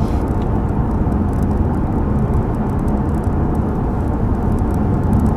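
Steady low rumble of road and engine noise inside the cabin of a moving BMW 750i.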